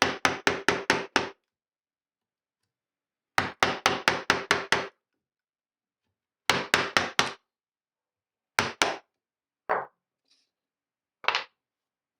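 Wood chisel being struck in fast runs of blows, chopping out a valley in a board. There are two runs of about eight quick strikes, then a shorter run, then a few single blows.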